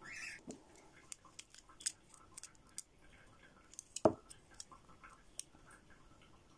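Small clicks and taps of a gel polish bottle and a plastic nail tip being handled, with one sharper click about four seconds in as the brush cap is pulled off the black gel polish bottle.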